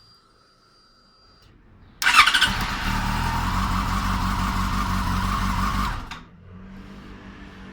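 Yamaha FZ6's inline-four engine starting about two seconds in and running loudly for about four seconds, then dropping to a quieter steady idle. It fires now that the cut immobilizer wire is reconnected.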